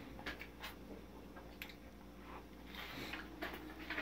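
Faint scattered clicks and light knocks, a few in all, over a low steady hum.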